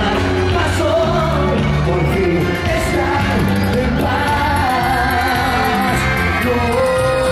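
Cuarteto singer singing into a handheld microphone over band backing, amplified across a stadium.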